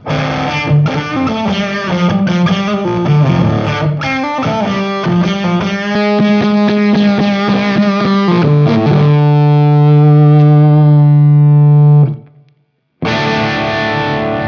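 Electric guitar played through a Mythos Golden Fleece fuzz pedal into an Amonito tube amp, with a fuzzy, distorted tone. A run of picked notes gives way about nine seconds in to a held chord that rings out, then the sound cuts off abruptly. About a second later a new chord is struck and rings.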